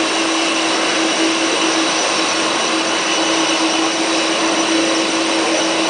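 Aircraft engine running at steady power: a loud, unchanging rush with a constant hum held through it.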